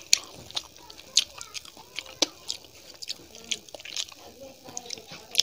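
Close-miked chewing of a mouthful of dal and rice, with sharp wet mouth clicks and smacks at irregular intervals.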